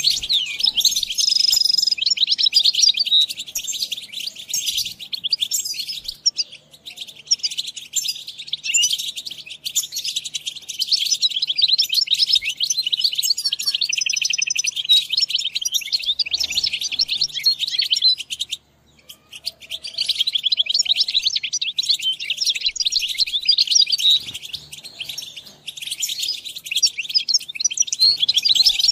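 European goldfinch song: rapid, continuous twittering and trilling chirps, broken once by a brief pause about two-thirds of the way through.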